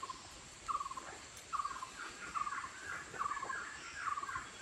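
An animal call repeating steadily about once a second, each a short note dropping slightly in pitch, over a faint steady high insect whine.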